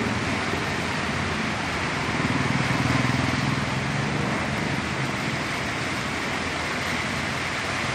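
Motorcycle engine running at low speed through shallow floodwater, over a steady hiss of wheels churning through water on the road. The engine hum swells for a moment about two seconds in.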